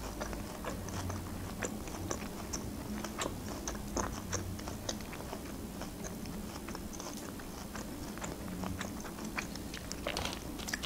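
Close-miked chewing of grilled shashlik meat with the mouth closed: soft, irregular wet clicks and smacks. Near the end a brief rustle as fingers go into the foil tray.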